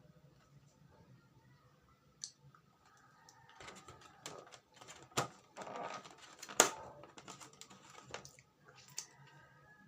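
Close-miked eating of soft yema cake: scattered sharp clicks and taps, the loudest about six and a half seconds in, with soft moist mouth and chewing noises filling the middle stretch.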